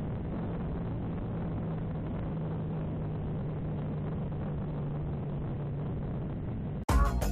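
Motorcycle running on the road, picked up by an action camera: a steady engine hum that slowly sinks in pitch over a rushing noise. Near the end it cuts suddenly to electronic music.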